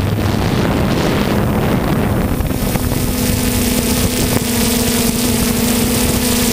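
3DR Solo quadcopter's motors and propellers running, a steady hum over a rush of air. A little under halfway through, the hum steps up slightly in pitch and holds steadier.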